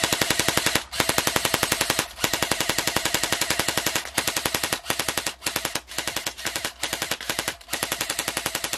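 Lancer Tactical M4 airsoft electric rifle firing on full auto, its motor and full-metal gearbox cycling in a rapid, even clatter of shots, broken into a series of bursts with brief pauses between them. It fires fast.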